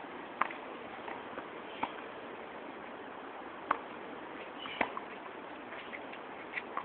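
Tennis balls struck by racquets and bouncing on a hard court during a baseline forehand rally: sharp pops every second or two, some fainter, over a steady background hiss.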